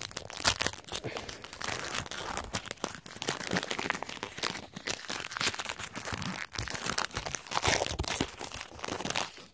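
Foil Pokémon booster pack wrapper being handled and torn open by hand: continuous irregular crinkling and crackling with tearing.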